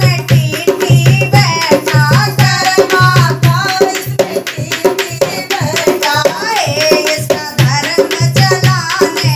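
Women's voices singing a Hindi devotional bhajan, taking turns on the lines, over a dholak played by hand in a steady folk rhythm, with a spoon clicking against the drum to keep time.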